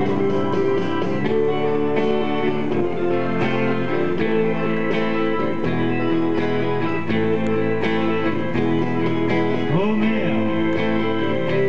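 Live music on a Stratocaster-style electric guitar played through a small combo amplifier, a steady run of chords and notes with no break.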